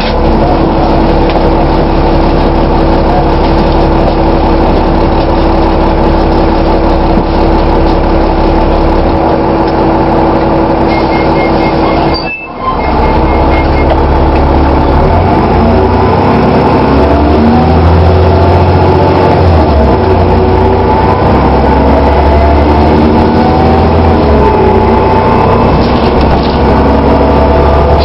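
Dennis Trident double-decker bus running: a steady engine and drivetrain drone with a held whine for the first half, a brief dip about halfway, then engine pitch rising and falling as the bus changes speed. This whine is the odd noise this bus is recorded for.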